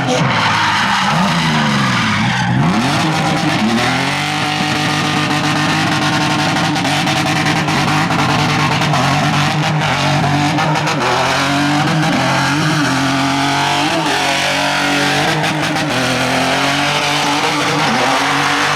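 Car engine revving hard and held at high revs, its pitch dropping and climbing back sharply about a second in and several more times later, over a constant hiss of tyre noise.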